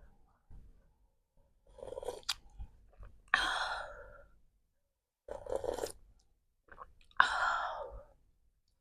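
Close-miked chewing and wet mouth sounds of someone eating, in four bursts about two seconds apart; the second and fourth start sharply and are the loudest.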